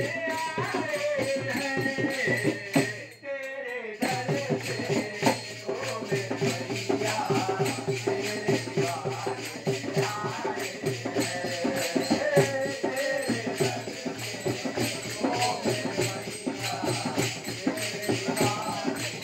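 Devotional kirtan: a man singing a bhajan through a microphone over a sustained harmonium and a steady beat of hand percussion. The sound drops out briefly about three seconds in.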